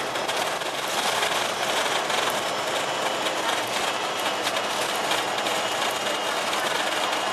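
Steady engine and running noise heard from inside an Alexander Dennis Enviro500 double-decker bus, recorded near its Cummins ISL 8.9-litre diesel engine, which drives a Voith DIWA automatic gearbox.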